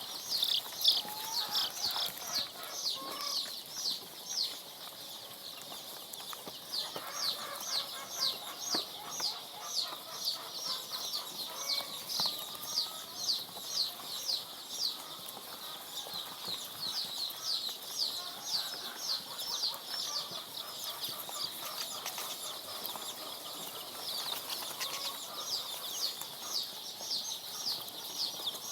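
Three-day-old layer chicks peeping: a steady stream of short, high cheeps, each falling in pitch, about two or three a second.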